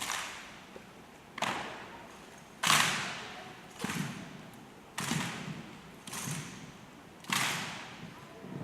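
Sharp, echoing strikes from a rifle drill team moving in unison, about one every second and a quarter, each dying away over about a second.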